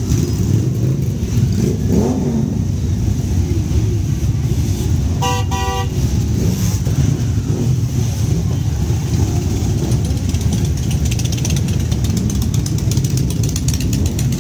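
Many motorcycle engines running together as a column of motorcycles rides off at low speed, with engines revving now and then. A horn sounds briefly, in a few quick toots, a little over five seconds in.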